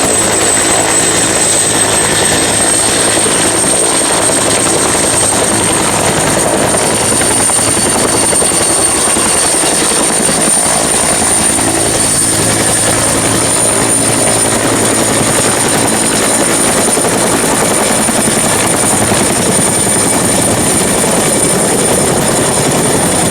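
Helicopter sound: the rotor and engine run steadily under a high whine that rises slightly over the first few seconds and then holds.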